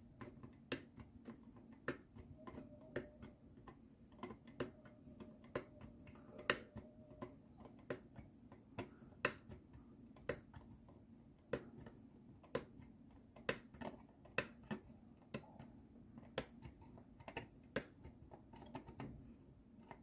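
Irregular small sharp clicks, about one or two a second, as a soldering iron tip knocks old connector pins off a circuit board's pads one by one.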